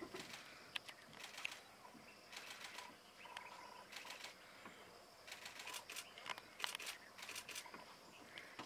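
Faint bursts of quick, sharp, high clicks, coming in clusters about every second, with one short steady whistle-like note a little after three seconds in.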